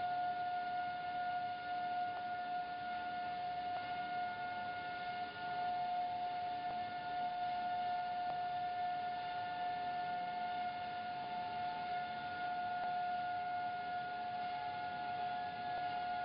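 Steady high-pitched tone with overtones from a running JET 400 corrugator line, holding unchanged, with a few faint ticks.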